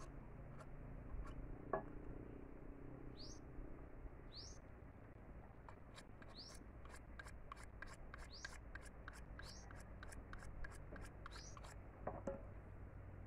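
Machete blade scraping and shaving a thin stick into a skewer in quick short strokes, about three a second through the second half, with a bird giving short rising chirps about once a second.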